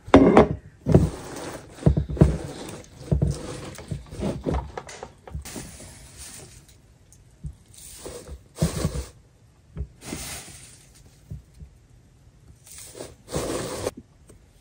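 A hand handling wet shredded paper soaking in a clear plastic container: irregular wet rustling and scraping in a run of separate bursts, the loudest right at the start.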